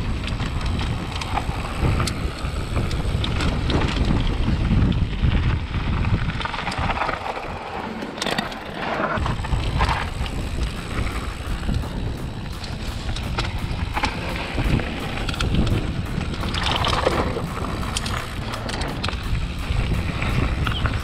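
Wind buffeting an action camera's microphone as a YT Jeffsy mountain bike rolls fast down a gravel trail, with tyres crunching on the loose surface and the bike rattling. The wind rumble eases briefly about eight seconds in, and a quick run of clicks and rattles comes near the end.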